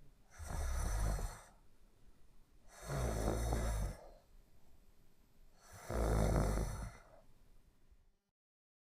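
A sleeper snoring: three long snores about three seconds apart, then the sound cuts to dead silence near the end.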